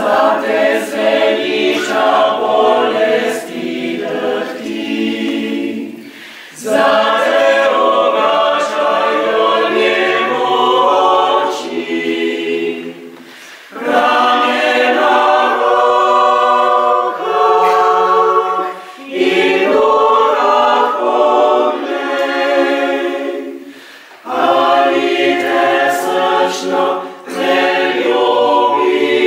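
Mixed choir of men's and women's voices singing a Slovenian hymn a cappella, in phrases of about five to six seconds with short breath pauses between them.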